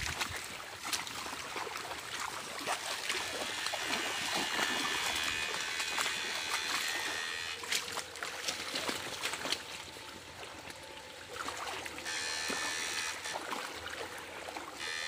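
Water sloshing and trickling as someone wades, with the high electric buzz of an electrofishing shocker switching on for a few seconds at a time, twice.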